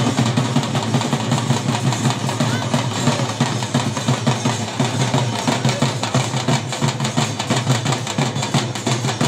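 Large double-headed barrel drums beaten together in a fast, steady, driving rhythm, the drumming that accompanies the Bundelkhandi Diwari stick dance.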